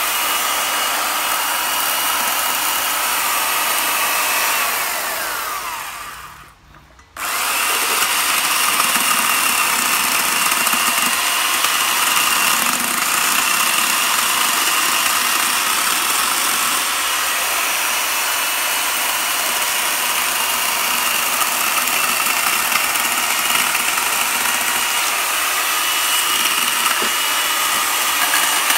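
Chainsaw running steadily with a high whine as it carves the deadwood of a bonsai trunk. About five seconds in it winds down and drops out briefly, then comes straight back at full speed.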